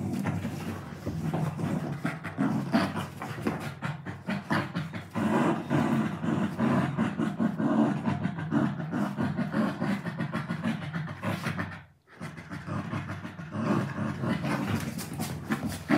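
A Labrador retriever and a German Shepherd puppy growling and panting as they play-tug a pillow, with their mouths working the pillow fabric. The sound breaks off briefly about twelve seconds in.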